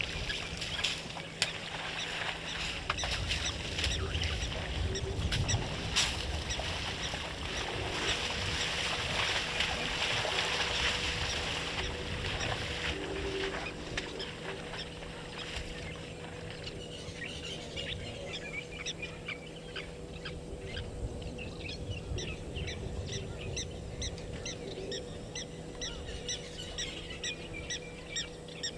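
Wild birds calling in the bush, with many short repeated calls coming thick and fast in the second half, over a steady outdoor hiss and a faint constant electrical hum.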